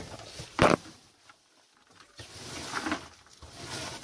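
A gloved hand scraping soiled hay and rabbit droppings across the wooden floor of a rabbit hutch: one short, sharp scrape about half a second in, a pause, then rustling of straw near the end.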